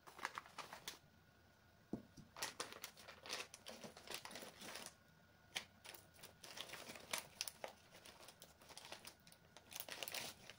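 Faint, irregular crinkling and light clicks of items being handled at a kitchen table, in stretches with short pauses.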